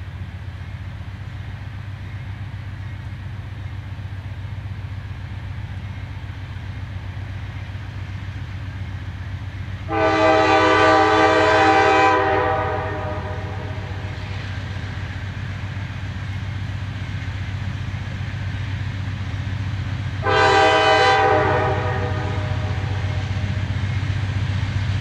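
Approaching CSX diesel freight train: a steady low locomotive rumble that slowly grows louder, with two blasts of the locomotive's air horn, a long one about ten seconds in and a shorter one about ten seconds later.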